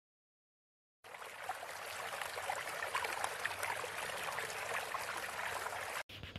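Running water trickling and splashing lightly, like a small stream. It starts suddenly about a second in and cuts off abruptly near the end.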